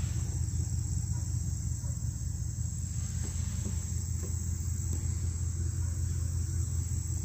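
Crickets chirping in a steady high trill, over a steady low rumble.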